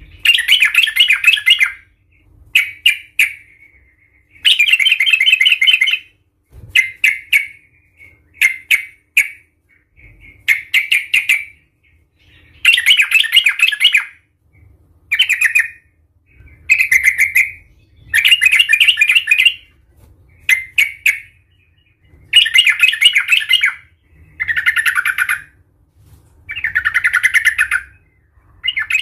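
Yellow-vented bulbul in excited, vigorous song: loud, rapid, bubbly phrases of about a second each, repeated roughly every two seconds with short pauses between.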